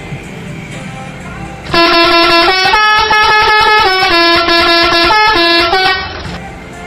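Telolet horn, the multi-tone musical truck horn, loud over background guitar music: about two seconds in it plays a tune of held notes stepping up and down for about four seconds, then stops.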